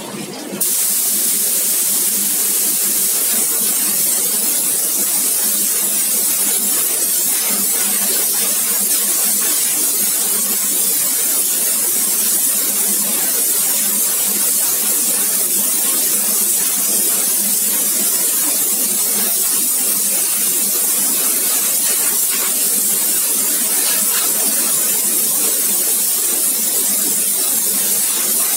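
Hand-held high-pressure blasting nozzle hissing steadily as it is played over a chrome car grille, starting about half a second in.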